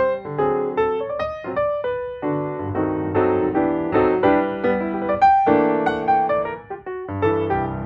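Background piano music, several notes sounding together in a flowing run of chords.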